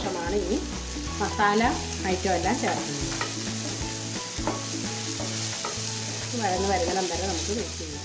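Chopped onion, tomato and green chillies sizzling in hot oil in a nonstick frying pan while a wooden spatula stirs and scrapes them around, a steady frying hiss throughout.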